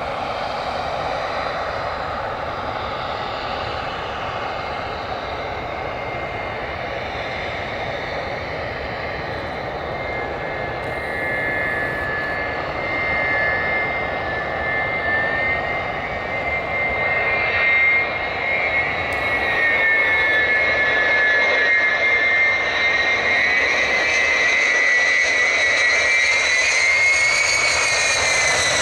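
Tupolev Tu-154M airliner on final approach with its three rear-mounted Soloviev D-30KU-154 turbofans: a steady jet rush with a whining tone that grows louder as the aircraft nears and wavers in pitch. Near the end the whine drops in pitch as the jet passes at touchdown.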